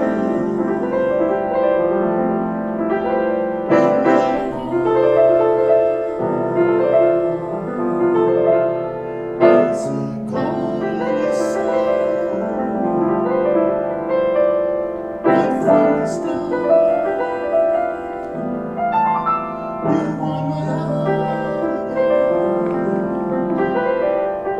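Solo piano playing slow sustained chords and melody notes, with a fresh chord struck every few seconds.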